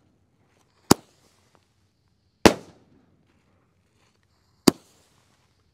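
Boom Box consumer mini canister firework shells going off: three sharp bangs about a second and a half to two seconds apart, the middle one trailing off in an echo.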